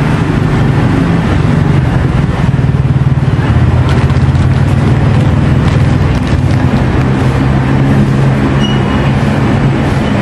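A motor vehicle engine running steadily up close, a loud, even low hum.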